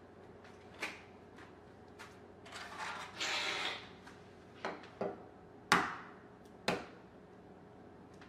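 Eggs being cracked into a plastic blender bottle: a series of sharp taps and cracks of shell, the loudest a little past halfway, with a short crackly stretch about three seconds in.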